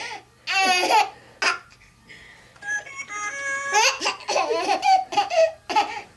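Bursts of giggly laughter mixed with short, held sung notes from SingAMaJigs singing plush toys.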